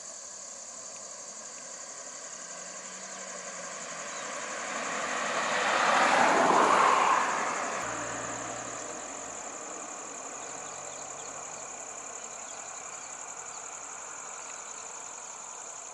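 A car drives past close by, its tyre and engine noise swelling to a peak about six to seven seconds in and then fading away. After it passes, a van's engine idles low and steady, over a steady high drone of insects.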